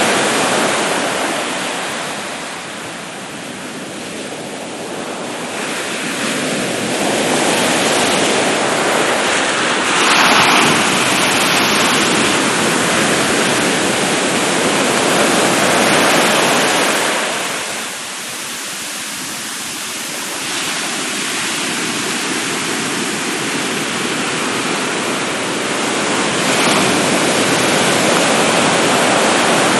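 Ocean waves breaking and washing onto a sandy beach: a continuous roar of surf that swells and ebbs, with a sharper crash about ten seconds in and quieter lulls a few seconds in and just past halfway.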